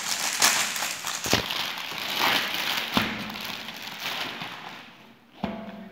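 Clear plastic courier bag crinkling and crackling as it is torn and pulled open and a paper-wrapped parcel is slid out, with sharp pops from the plastic and tape. The rustling dies down, and a single knock with a short ring comes near the end.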